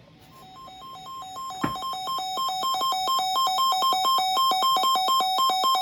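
Electronic emergency alert tone for a severe thunderstorm warning, rapidly alternating between two pitches. It swells in volume over the first couple of seconds, and a single click sounds just before it reaches full strength.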